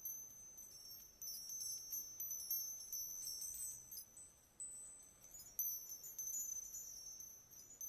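A string of twelve small high-pitched bells ('Children's Laughter' bells) jingling softly: many small, quick strikes with thin high ringing that lingers, a fresh flurry about a second in and a brighter one a little past halfway.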